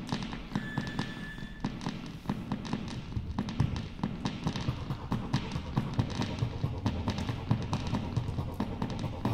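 Circuit-bent electronic instruments putting out a glitchy, irregular stream of clicks and crackles over a low rumble, with a brief high beep about half a second in.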